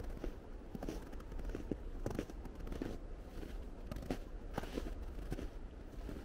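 Footsteps crunching in snow at a walking pace, each step a short crisp crunch, over a low steady rumble.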